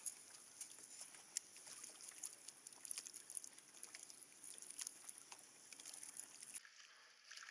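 Faint water lapping and splashing around a kayak, with many small sharp ticks and drips. It drops off suddenly near the end.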